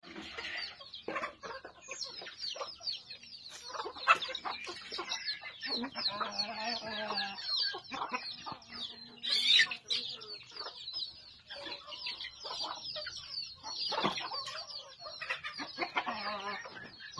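A backyard flock of chickens clucking and calling, with many overlapping high chirps and a louder call about halfway through.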